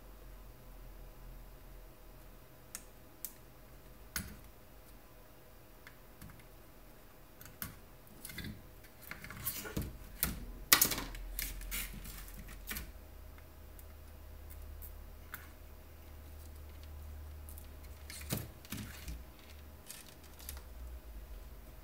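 Light clicks, taps and rattles of circuit boards and a soldering iron being handled and set down on a table. A busy cluster of knocks in the middle, loudest about eleven seconds in, with a few scattered taps before and after.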